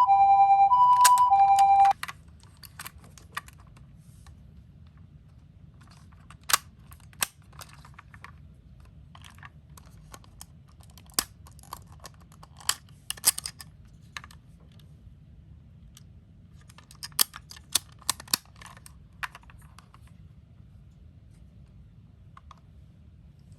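A toy ambulance's electronic two-tone siren alternating between two pitches, cutting off suddenly about two seconds in. Then scattered light clicks and taps, singly and in small clusters.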